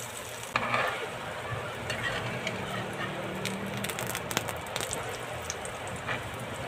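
Eggplant omelette frying in hot oil in a metal pan, a steady sizzle with crackling. Sharp clicks of a metal spatula against the pan come in the middle as the omelette is lifted and turned.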